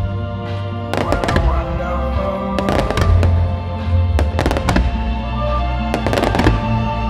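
Aerial fireworks shells bursting in a rapid series of sharp bangs and crackles. They come in clusters about a second in, near three seconds, around four and a half seconds and near six seconds, over background music with held tones and a heavy bass.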